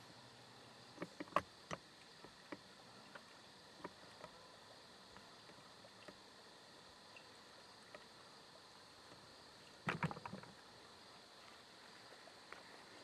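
Quiet field-edge ambience: a faint steady high hiss, with scattered small clicks and a brief louder rustle of clicks about ten seconds in.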